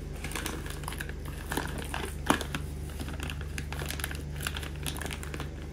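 Brown paper parcel wrapping crinkling and scratching as it is cut and worked open with a small utility knife, in irregular scrapes with one sharper snap about two seconds in.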